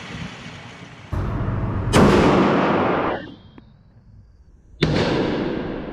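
Two gunshots at a shooting range, about three seconds apart, each followed by a long echoing decay. The first shot is the louder.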